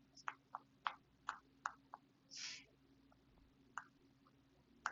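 Faint, irregular light clicks, about eight of them, most within the first two seconds and two more near the end, with a soft hiss about two and a half seconds in, over a low steady hum.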